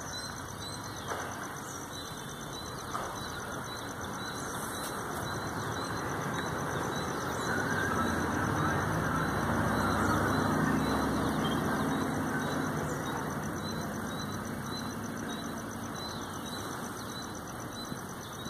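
A motor vehicle's engine running, swelling up and fading away again with its loudest point about ten seconds in, over a steady outdoor hum. Faint high chirps repeat about twice a second, with occasional higher whistling calls of birds.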